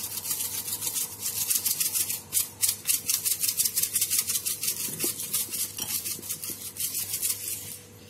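Chilli flakes rattling in a plastic shaker jar, shaken rapidly and evenly over a pizza at several shakes a second, stopping just before the end.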